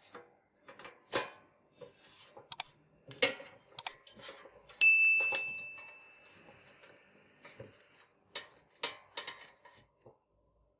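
Clicks, knocks and clinks of handling the air fryer basket and turning the chicken pieces, with one loud ding about five seconds in that rings and fades over a couple of seconds.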